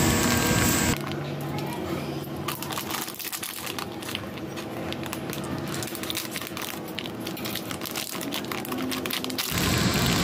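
Clear plastic bag of motorcycle brake master cylinder repair parts crinkling as it is handled and cut open with scissors: a dense run of small crackles starting about a second in and stopping shortly before the end.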